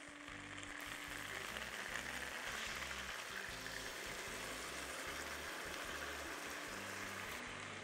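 Sauce poured over chicken wings in a hot pan, frying with a steady sizzle that starts about a second in. Soft background music with a low bass line plays underneath.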